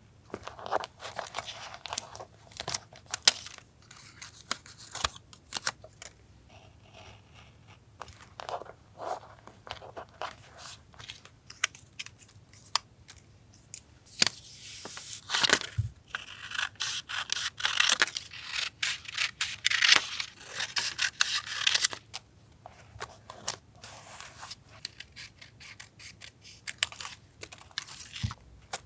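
Paper crafting at a desk: scissors snipping paper, with paper tearing and rustling and small clicks and taps in irregular bursts, busiest through the middle of the stretch.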